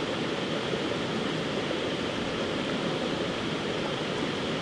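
A fast-flowing stream rushing steadily.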